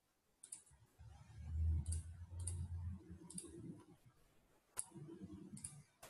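Computer mouse clicks, about eight spread over a few seconds, with a low rumble in the first half.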